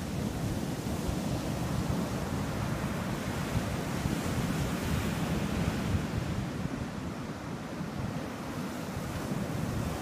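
Ocean surf breaking and washing up a sandy beach, a steady rushing wash that swells about halfway through and eases off afterwards, with wind noise on the microphone.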